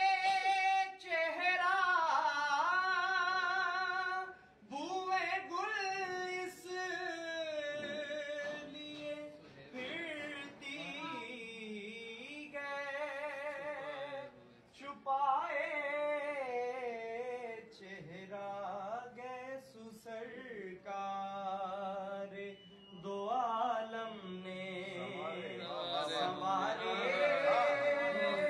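A naat, an Urdu devotional song in praise of the Prophet, sung with long held notes that waver in pitch, in phrases with short pauses between them.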